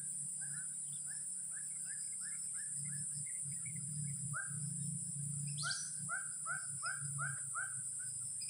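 A bird calling a series of short repeated notes, about two or three a second, in two runs with a short pause between, over a steady high-pitched hiss.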